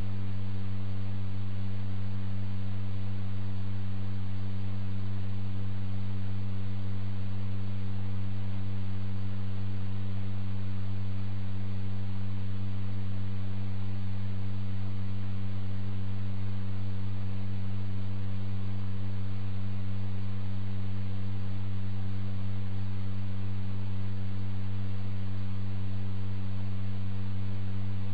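A steady, unchanging low hum with several fainter overtones above it.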